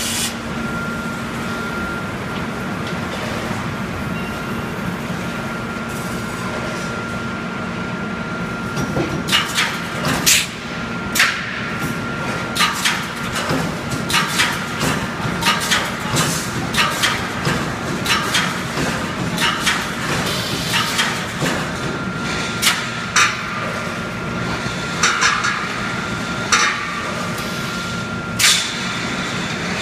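Automatic wire mesh welding machine running with a steady hum and a thin high whine, and from about nine seconds in, sharp metallic clacks about once a second as it cycles.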